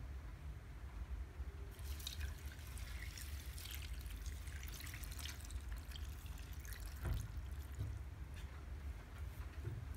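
Coconut milk poured from a glass jar onto spinach leaves and chia seeds in a blender jar, splashing and trickling for about five seconds, then a single knock.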